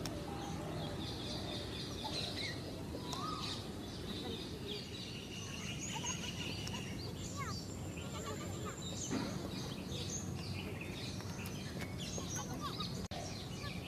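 Outdoor field ambience: many small birds chirping and calling, with short rising and falling chirps and one high held note about midway, over a steady low rumble and quiet talk from people nearby.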